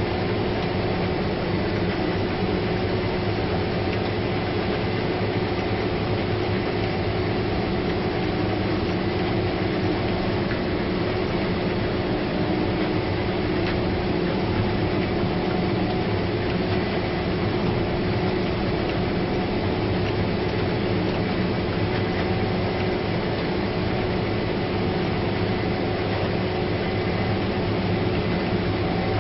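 Combine harvester running steadily at working speed: a constant machine drone with a few steady whining tones held throughout.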